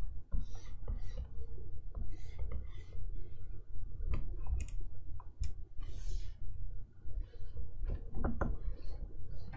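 Stylus nib scratching across the screen of an XP-Pen Artist 15.6 Pro pen display in short sketching strokes, with a few sharp taps of the pen on the glass. A low rumble runs underneath.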